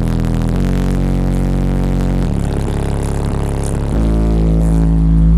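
Bass-heavy music played loud through a car stereo, heard inside the cabin: deep held bass notes from two Digital Designs 9515 subwoofers driven by two DD M3B amplifiers. The bass note changes three times, and the last note is the loudest.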